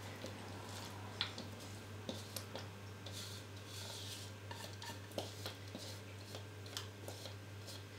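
Faint scraping and light clicks of a utensil against a plastic mixing bowl as sticky oat flapjack mixture is tipped out into a paper-lined baking tin, over a low steady hum.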